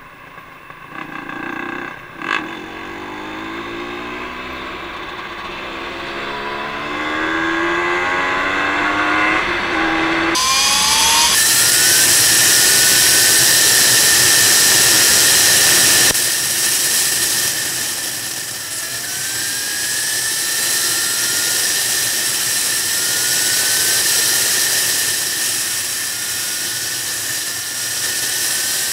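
Motorcycle engine pulling away and shifting up through the gears, its pitch climbing and dropping with each shift. About ten seconds in, loud wind noise on the microphone at road speed takes over, with the engine's pitch rising faintly underneath.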